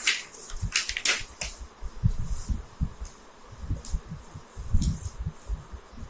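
Paper sheets rustling and being handled on a desk, with crisp crackles in the first second and a half, then a few soft low thumps.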